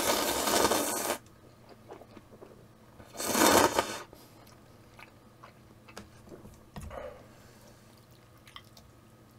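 Instant ramen noodles slurped loudly off chopsticks twice, a long slurp at the start and a shorter one about three seconds in, followed by chewing with scattered small clicks.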